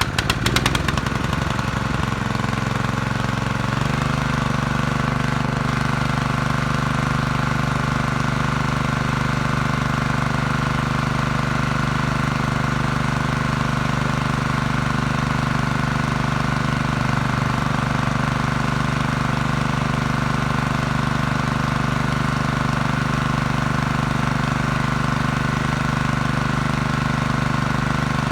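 Portable gasoline generator engine running steadily just after starting, its carburetor freshly cleaned; the note firms up and settles into an even hum about four seconds in.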